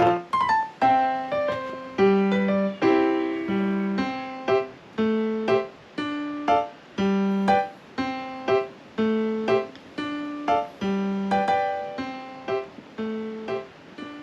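Background music: a piano tune played in a steady rhythm, with a new note about every half second over lower bass notes.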